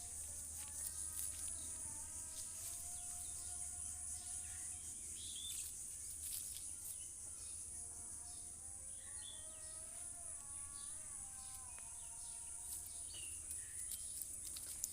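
Steady high insect chirring with scattered bird chirps. Two long pitched sounds, each a few seconds and stepping in pitch, come about a second in and again about seven seconds in.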